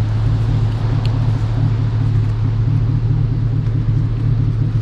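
Pickup truck engine idling steadily, a constant low hum, with a faint light clink about a second in.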